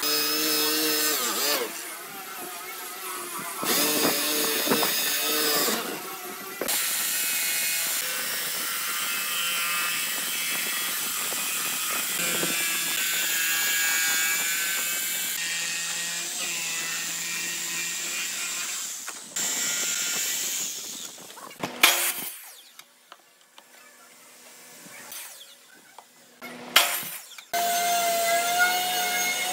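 A drill press boring holes in a pine board with a Forstner bit, then a jigsaw cutting through the wood between the holes. Near the end the tool noise drops away and there are a couple of sharp knocks.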